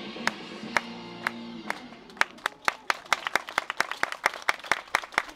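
Dance music played over loudspeakers with a sharp clap on the beat about twice a second. The music's held notes drop out about two seconds in, and quicker sharp claps follow, coming closer together.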